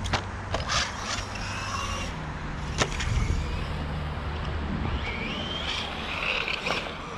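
Brushless motor of a Bezgar HM124 1/12-scale 4x4 RC car whining up and down in pitch as it accelerates and slows, with the tyres rolling over the ground. There are a few sharp knocks, one about three seconds in.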